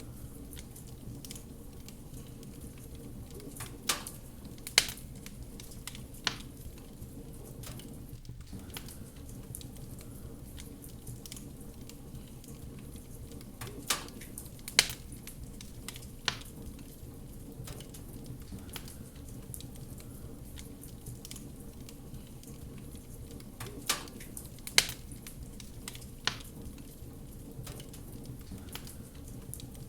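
Wood fire crackling in a fireplace: a steady low rush of burning under occasional sharp pops. The pops come as the same group of three about every ten seconds, as from a looped recording.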